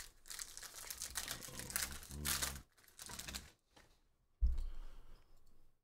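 A stack of glossy Panini Prizm football cards handled and flicked through in the hand: fast crisp clicking and sliding of card against card with some crinkling, in short spells, and a single thump about three quarters of the way through.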